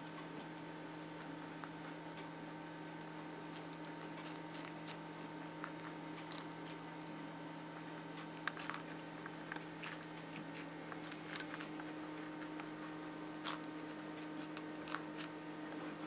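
Small lop-eared pet rabbit gnawing a piece of carrot, giving faint, irregular crisp crunches and clicks as its teeth bite off and chew bits. A steady low electrical hum sits underneath.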